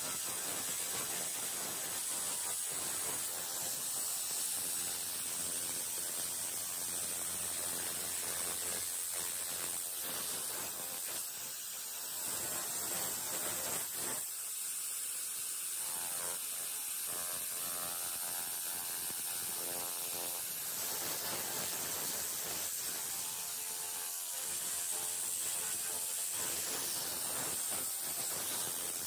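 Handheld 300 W pulsed laser cleaner ablating rust from metal: a steady, rapid crackling hiss.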